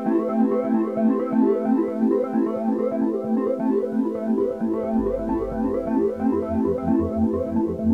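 Background music: a fast run of repeating synthesizer or electric-piano notes, with a low bass pulse coming in about five seconds in.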